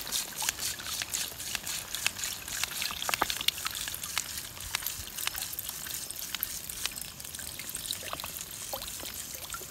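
Creek water pumped through a hose trickling into a soft plastic water-filter bag, with many small splashing ticks.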